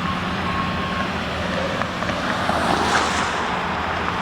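Union Pacific local freight train passing, its diesel locomotive engine running steadily under a rising rush of wheel and rail noise with small clicks from about two seconds in. A steady high tone sounds during the first second.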